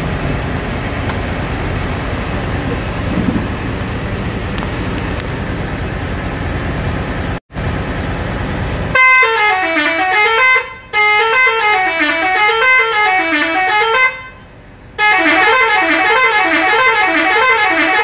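Telolet multi-tone musical horn of a bus playing a tune that wavers up and down, in three loud bursts with short breaks, starting about halfway through. Before it there is several seconds of steady background noise.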